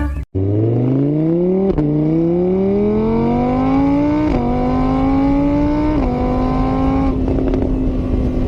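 Car engine accelerating hard through the gears: its pitch climbs steadily, then drops suddenly at each gear change, about four shifts in all, settling to a steady pitch near the end.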